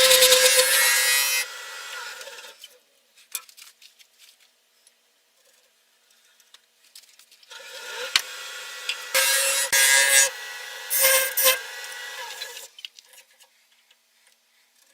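A wood lathe spinning a bowl blank while a hand tool works against the turning wood: a steady hum with a scraping, rasping noise. The sound stops about two and a half seconds in, leaving a few faint clicks, and comes back for several seconds in uneven surges about halfway through.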